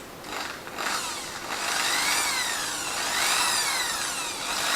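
Electric drill spinning an 8.3 mm drill bit free, its motor whine rising and falling as it speeds up and slows down a few times. The bit shakes badly as it turns: it runs out of true.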